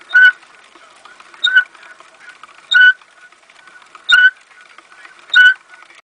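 Blue plastic Silent Spinner hamster wheel turning under a running hamster, giving a short, high squeak about once every 1.3 seconds, five times in all, over a faint rolling background.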